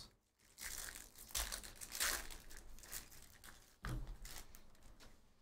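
Foil trading-card pack wrapper crinkling and tearing as it is pulled open by hand, in a run of irregular crackles.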